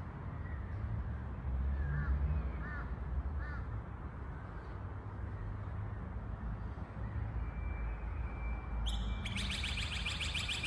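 Outdoor ambience with birds calling over a steady low rumble: three short chirps a few seconds in, then a loud, rapid, high-pitched chattering trill starting near the end.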